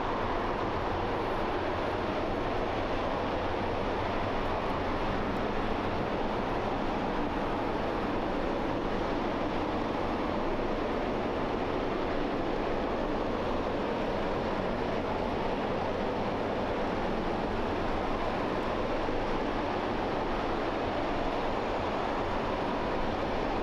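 RS-25 liquid-hydrogen/liquid-oxygen rocket engine firing at full thrust during a hot-fire test: a steady, dense rushing noise that does not change.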